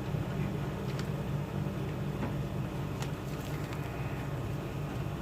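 Steady low mechanical hum throughout, with a few faint light ticks about a second and three seconds in.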